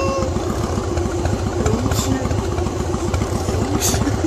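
Motorcycle engine idling with a rapid, even low chug.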